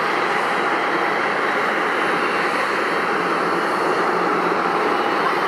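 Jet airliner engine noise, a steady even rush with no rise or fall.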